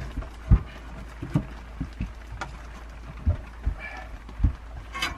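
Irregular wooden knocks and clunks, about a dozen in five seconds, as firewood is handled and loaded into a sheet-metal wood stove.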